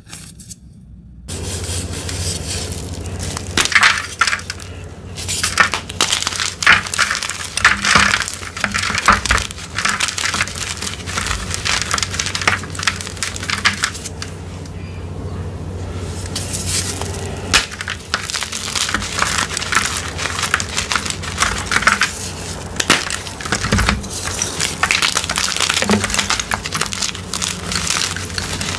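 Hands crushing and crumbling glitter-topped blocks of gym chalk, a dense run of crisp crunching and crackling that starts about a second in, with one brief let-up partway through.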